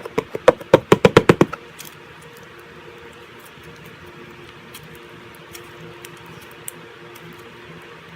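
Slime being squished and worked by hand: a quick run of loud clicks and pops for about a second and a half, then only faint steady room noise.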